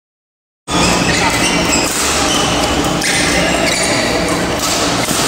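Silence, then about a second in the sound cuts in abruptly: the steady din of a busy badminton hall, with several voices and the knocks of play on the courts.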